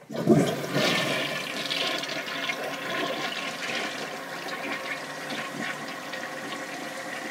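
Rushing water, starting suddenly and loudest in its first second, then running on steadily.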